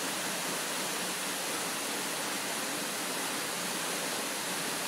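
A tall waterfall pouring into its plunge pool: a steady, even rush of falling water.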